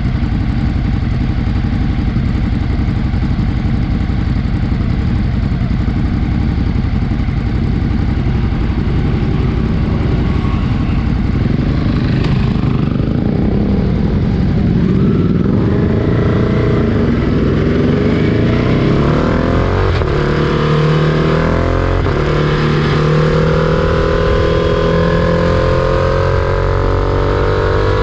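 Freight train rumbling and clattering, with an engine tone that starts about halfway through and climbs steadily in pitch to the end.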